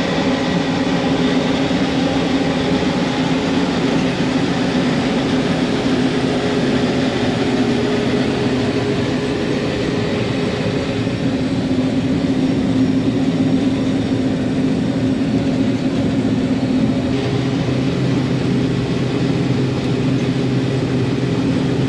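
Combine harvester's diesel engine running steadily at working speed while harvesting soybeans, with a slight shift in its tone about three-quarters of the way through.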